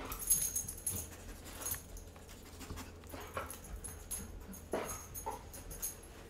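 A dog sniffing and panting in short noisy breaths as it searches for hidden treats by scent, with light metallic jingling now and then.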